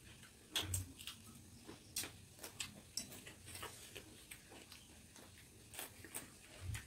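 Faint eating sounds at a table: irregular small clicks and crunches of chewing and mouth noises, with light taps of fingers and food on metal plates. Two soft thumps stand out, one just under a second in and one near the end.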